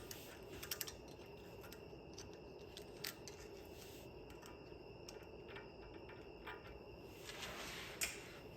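Faint, scattered light clicks and taps of small metal locking-hub parts being handled as a little washer is pulled out, with a brief rub near the end.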